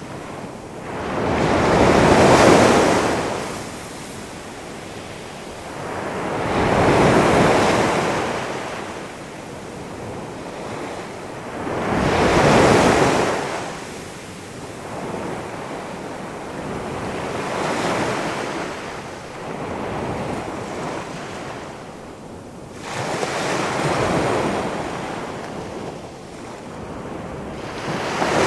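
Ocean surf: big waves rolling in and breaking one after another, each a hissing crash that swells and dies away about every five seconds, with wind.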